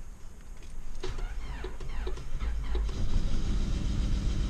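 Honda D16Y7 four-cylinder engine being cranked, catching about three seconds in and running rough. It is firing on only two cylinders because two spark plug wires are unplugged, and its cracked cast exhaust manifold is leaking.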